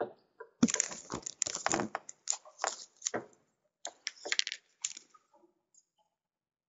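A rapid, irregular run of sharp clicks and crackles, densest from about half a second to two seconds in and thinning out in short clusters until about five seconds in, then stopping.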